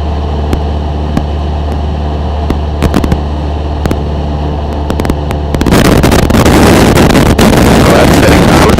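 Cessna 172's engine droning steadily as heard through the cockpit intercom recording, broken by sharp crackling clicks of static that the pilots put down to a fault in the audio wiring. About two thirds of the way in, a much louder rush of static hiss swamps the intercom.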